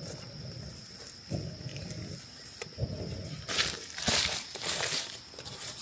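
Irregular rustling and whooshing noises from people handling things and moving about, loudest about three and a half to five seconds in, over a faint steady high-pitched whine.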